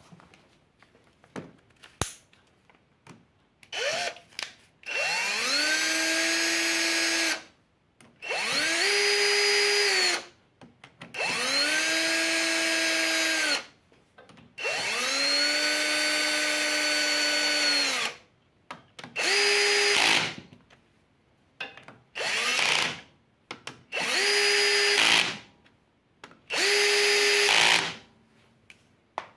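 Cordless drill-driver with a socket running in the clutch spring bolts on a Yamaha YBR 125 clutch pressure plate. It runs in about nine short bursts of one to three seconds each. Each burst opens with a quickly rising whine that holds a steady pitch, then stops.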